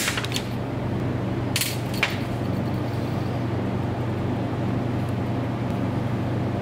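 Side cutters working the end of a thick red 6-gauge cable: a short scrape and then a click between about one and a half and two seconds in, over a steady low hum.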